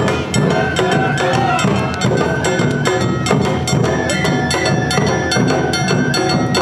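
Awa odori festival band (narimono) playing: taiko drums and a clanging kane hand gong beating a fast, steady rhythm, with a shinobue bamboo flute melody over it.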